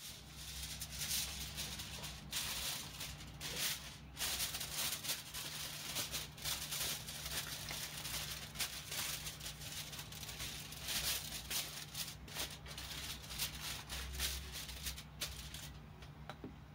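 Sheet of aluminium foil crinkling and rustling as hands spread it and press it into a metal bowl, in a dense run of irregular crackles that stops about a second before the end.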